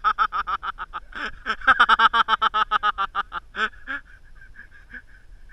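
A person laughing hard: two long runs of rapid, high-pitched 'ha-ha-ha' pulses, the second breaking off a little before four seconds in.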